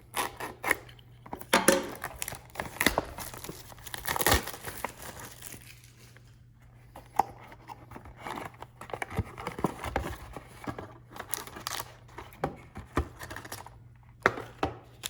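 Packaging being torn open and handled: tearing, crinkling and irregular clicks and scrapes of wrapper and cardboard as a trading-card hobby box is opened.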